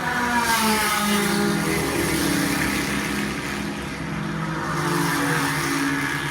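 Sports racing cars passing at speed during practice runs, each engine's pitch dropping as it goes by; two passes, the first just after the start and the second near five seconds in.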